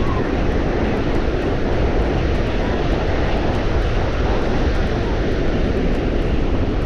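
Strong wind buffeting the microphone: a loud, steady rumbling roar, heaviest in the low end.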